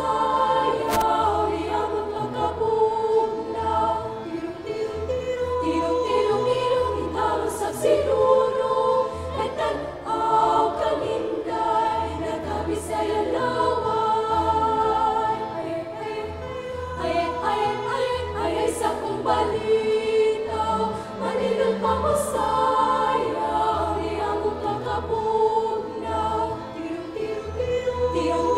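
Children's choir singing a song, many voices in sustained, moving harmony.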